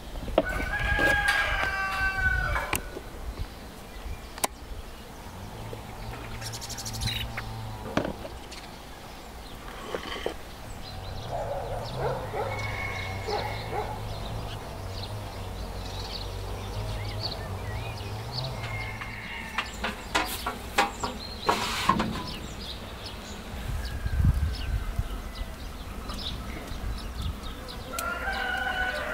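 A rooster crowing, once about a second in and again at the end, with chickens calling faintly in between. A few sharp knocks come about two-thirds of the way through.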